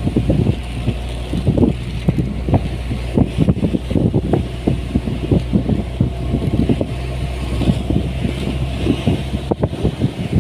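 A vehicle engine running steadily, with wind buffeting the microphone in irregular low thumps.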